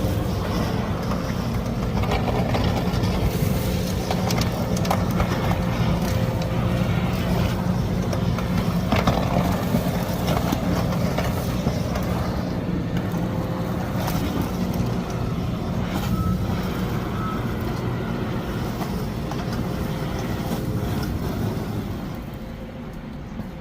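Road sweeper truck running: a steady engine and machinery drone with a broad hiss over it. Two short beeps sound about two-thirds of the way through, and the sound drops off near the end.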